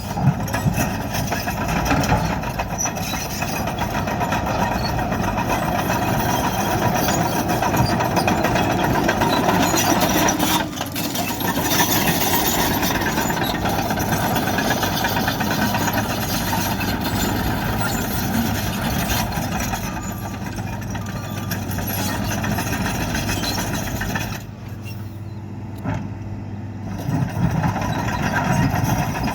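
Diesel engine of a Caterpillar 963D track loader running steadily under work, with the noise dipping briefly about eleven seconds in and again near the end.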